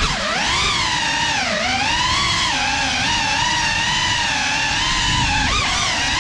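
GEPRC Cinelog 35 cinewhoop's motors and propellers whining, the pitch rising and falling continuously with the throttle, with a sharp dip about a second and a half in and another near the end.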